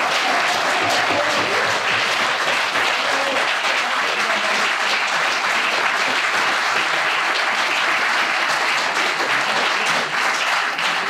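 Audience applauding, a steady dense clapping that holds at an even level.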